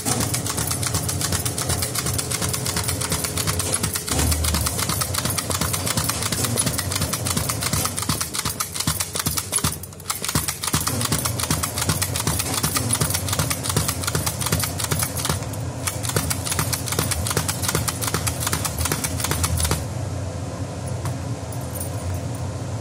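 Sticker printing machine running with a fast, steady clatter of clicks. It dips briefly about ten seconds in and turns softer and duller near the end.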